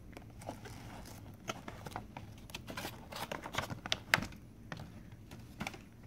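Plastic packaging being handled and opened: irregular crinkles and clicks from plastic wrap and a clear hard-plastic box, with one sharper click about four seconds in.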